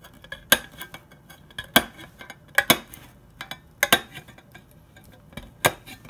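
Swiss Army knife lever can opener cutting around the rim of a tin can lid, a sharp metallic click at each levering stroke, irregular and about once a second, some in quick pairs.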